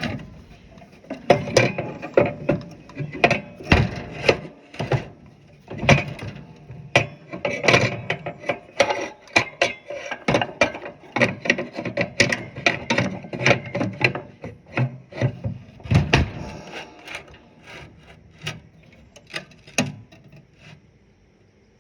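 A lawn-tractor engine being lifted and worked into place on the tractor's frame: a run of irregular knocks, clunks and scraping as it bumps and rubs against the frame. The knocking thins out after about 17 seconds.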